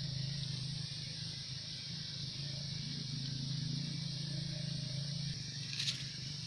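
Rural outdoor ambience: a steady high-pitched hiss-like drone over a low steady hum, with a brief noisy burst near the end.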